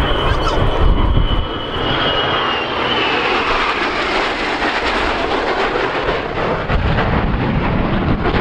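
Jet aircraft making a low pass: a high whine falls in pitch over the first two seconds or so as it goes by, then a steady, loud rush of jet engine noise.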